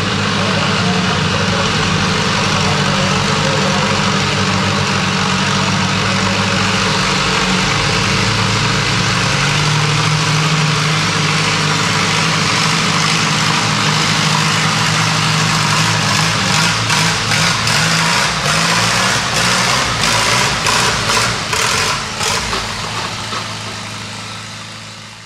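Small antique farm tractor's engine running hard under load, pulling a weight-transfer sled. About two-thirds of the way in the sound turns choppy, surging and dropping in quick pulses, then it fades out near the end.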